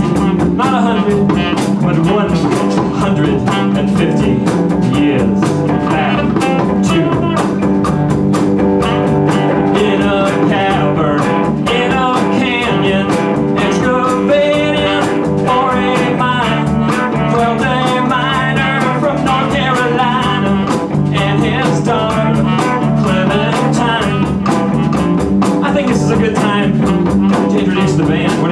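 Live band playing a bluesy rock number with guitar, saxophone, hand drums and drum kit.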